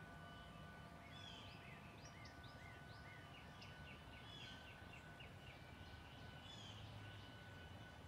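Faint birdsong: songbirds chirping in short rising and falling notes, with a run of quick repeated notes through the middle, over the long-held ringing tones of tube wind chimes.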